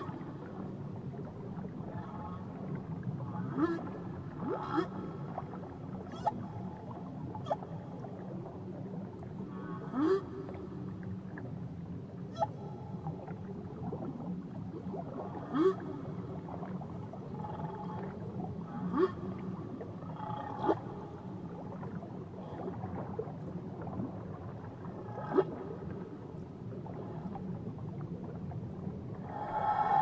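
Whale calls heard underwater: short squeaks and upswept cries every few seconds over a steady low underwater hiss.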